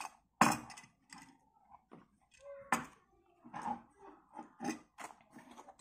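An oval Tramontina sharpening steel being pushed into the slot of a nylon knife scabbard: sharp knocks and clacks of metal and hard handles against each other, with scraping and fabric rustle between. The loudest knock comes about half a second in, another just before three seconds.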